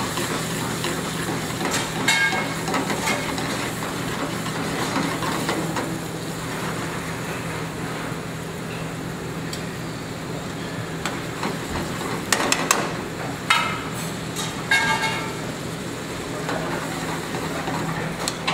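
Metal tongs clinking and ringing against a stainless sauté pan as butter is stirred into a simmering wine sauce, a few times about two seconds in and again in a cluster near the end, over a steady low kitchen hum.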